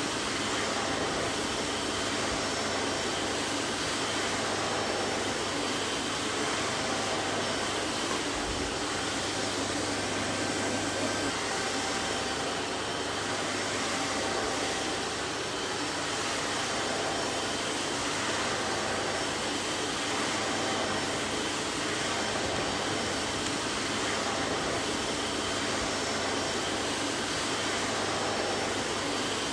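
Vacuum cleaner running steadily: an even, unchanging motor whoosh with a faint hum.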